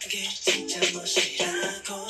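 K-pop song playing with a steady beat and vocals.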